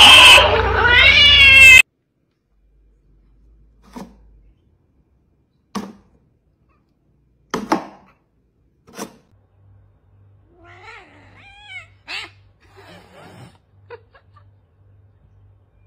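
A cat yowling loudly, its pitch bending up and down, cut off suddenly after about two seconds. Then a handful of sharp taps a second or two apart, and faint short meows near the end.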